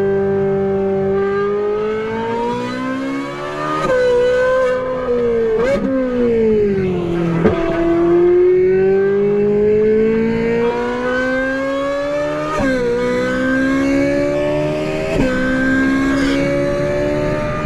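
Ferrari 458's V8 with an aftermarket Brilliant exhaust at full throttle, its pitch climbing steadily through the gears and dropping sharply at quick upshifts, about four, twelve and a half and fifteen seconds in. Between about six and seven and a half seconds the note falls away as the car slows, then rises again.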